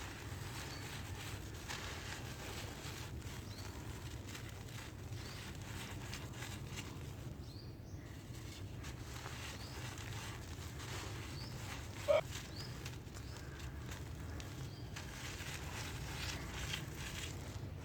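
Dry brick dirt crumbling, a run of faint crunchy crackles over a steady low hum. A short chirp about twelve seconds in is the loudest sound.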